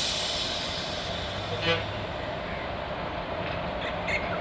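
Steady outdoor rumble and hiss from an electric express train approaching along the line, with a brief toot about one and a half seconds in.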